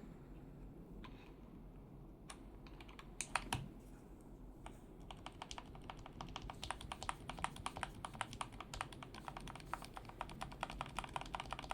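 Typing on a CIY Tester 68 mechanical keyboard fitted with Gateron Milky Yellow linear switches. A few separate keystrokes come first, then fast continuous typing from about five seconds in.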